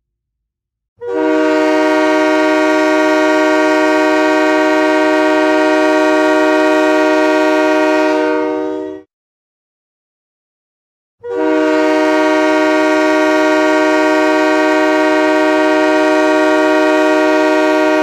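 Utah Grizzlies ice-hockey goal horn blowing two long, steady blasts of about eight seconds each, a chord of several tones, with a gap of about two seconds between them.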